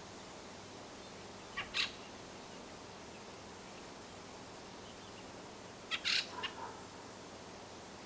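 A thrush giving short harsh calls: two about a second and a half in, then a quick chattering run of four or five about six seconds in.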